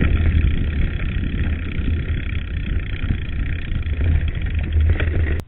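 Ride noise from a mountain bike rolling down a loose gravel track: a steady low rumble of wind on the bike-mounted microphone with tyre and rattle noise over it. It cuts off suddenly near the end.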